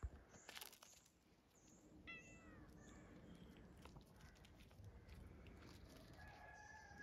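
Faint sounds of a cat and a puppy play-fighting: light scuffling and scraping of paws on gravel. A short cry falling in pitch comes about two seconds in, and a longer, steadier animal call starts near the end.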